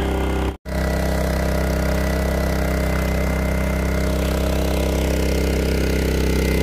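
Small Honda petrol generator engine running at a steady speed, supplying current for electrofishing. It cuts out for an instant about half a second in, then runs on unchanged.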